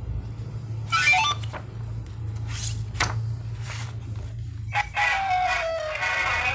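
Electronic talking-pen study book playing sounds through its small speaker as the pen touches the pictures: a short pitched animal-like call about a second in and a few sharp clicks. Then a brief high beep and, from about five seconds in, a synthetic tune, all over a steady low hum.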